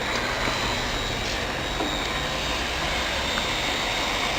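Automatic hot-air PVC welding machine running as it welds: its heat gun blows a steady rush of air, with a thin, steady high whine over it.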